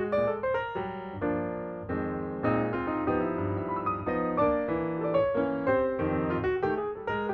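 Background piano music: a gentle melody with chords, notes struck one after another.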